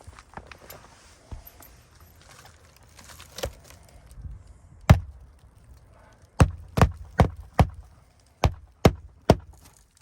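Hammer driving roofing nails to refasten asphalt architectural shingles: a single blow about halfway, then two quick runs of sharp strikes, four and then three, after a few seconds of soft rustling and scraping of the shingles being handled.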